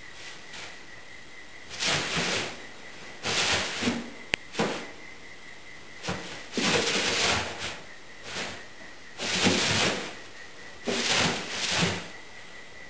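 Polystyrene bean-bag beads rustling and swishing in a bathtub as a kitten scrambles and burrows through them, in about six separate bursts, with a single sharp click about four seconds in.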